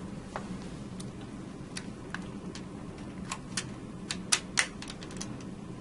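Light, irregular clicks and taps of pliers working the plastic push-button plate and sheet-metal bracket tab of a circuit breaker, about a dozen, with two louder clicks about four and a half seconds in.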